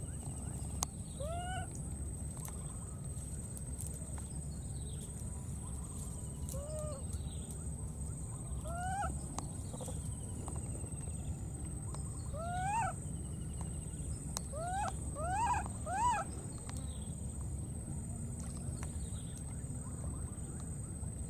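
Baby macaque crying: short rising-and-falling coo calls, about eight in all, spaced out at first, then three in quick succession about three-quarters of the way through, the loudest. These are the contact cries of an infant separated from its companions.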